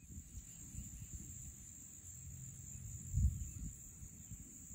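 Crickets singing a steady, high-pitched trill, with an irregular low rumble underneath and a single thump about three seconds in.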